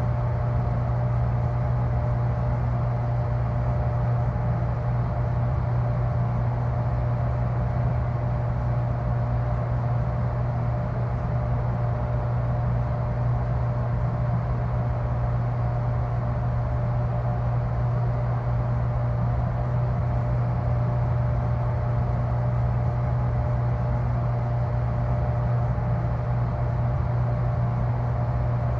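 Deep mechanical drone of a freezer unit: a steady low hum with a thin, higher steady tone above it, unchanging throughout.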